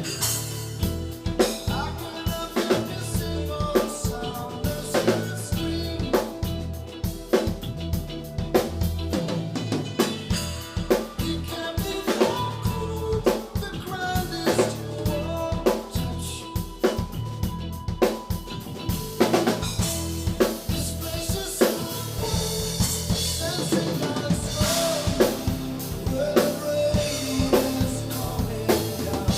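Drum kit playing a steady rock beat with bass drum and rimshot snare hits, over a backing of a pop-rock song with sustained pitched instruments.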